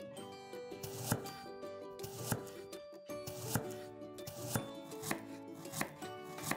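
Tiny knife cutting a garlic clove on a small wooden cutting board: crisp taps of the blade through the clove onto the wood, about one a second with lighter taps between, over faint background music.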